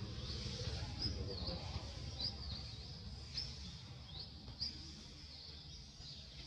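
Small birds chirping again and again in the background: short, high notes that sweep quickly up or down, a few each second, over a steady low rumble.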